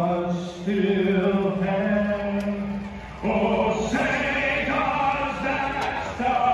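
Slow singing, a male voice holding long notes of a second or more, one after another.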